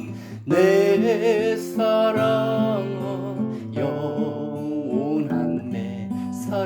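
Recorded song with acoustic guitar accompaniment and a wavering, vibrato melody line over it.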